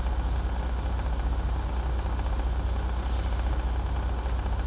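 Semi-truck diesel engine idling: a steady, unbroken low rumble.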